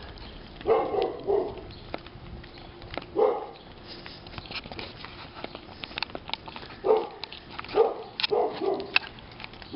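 A dog barking in short bursts: a quick group of barks about a second in, one more a couple of seconds later, then a cluster of barks near the end.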